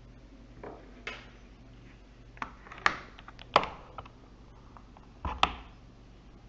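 Plastic laptop case being handled: a string of sharp clicks and knocks, the loudest three falling in the middle and near the end.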